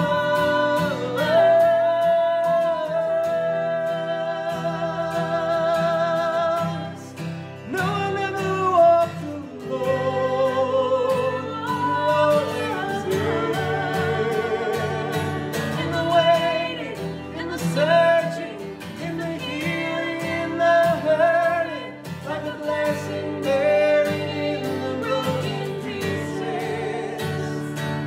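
A woman singing a worship song with vibrato, over a strummed acoustic guitar.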